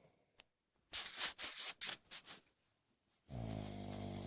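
A sleeper snoring: a breathy exhale in several short puffs about a second in, then near the end a new low, buzzing snore begins.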